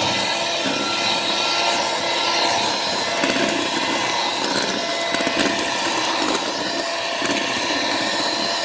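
Electric hand mixer running steadily, its beaters whipping eggs, sugar and flour in a metal bowl into a pale, fluffy cake batter.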